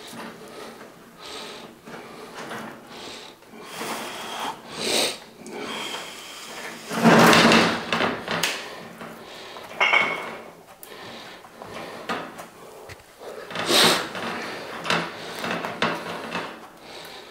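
Steel drain-snake cable of a Milwaukee M18 drum drain machine clattering and scraping as it is handled and fed back into the drum, in irregular bursts with the loudest about seven seconds in and again near fourteen seconds.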